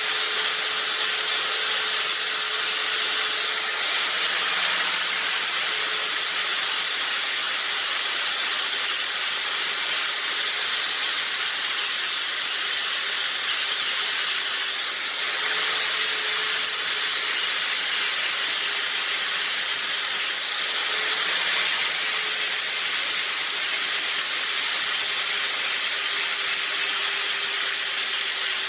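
Angle grinder grinding a steel tank bung flange without a break: a steady hiss of abrasive on metal over the motor's whine, which dips slightly now and then under load. This is the flange being cleaned down to bare metal before welding.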